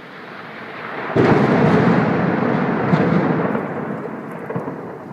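Thunder from a close cloud-to-ground lightning strike: a rumble builds, then a sudden loud crack about a second in, followed by a long rumble with a couple of sharper claps that slowly fades.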